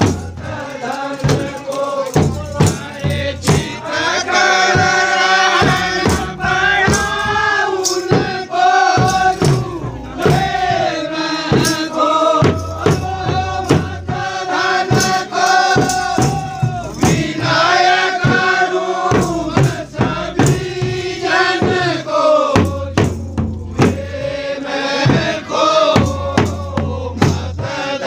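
Kumaoni khadi holi: a group of men singing a traditional Holi song together in long held notes, with dhol drums beaten with sticks in a steady rhythm.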